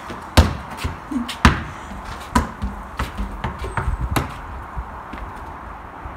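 Basketball bouncing on a paved patio: a series of hard thuds, the loudest about half a second and a second and a half in, then several lighter bounces that thin out after about four seconds.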